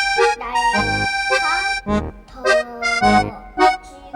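Background music: a melody of held notes over a steady, regular beat.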